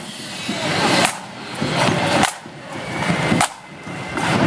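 Side drums of a marching flute band playing a rattling drum beat that swells to a sharp accented stroke about once a second.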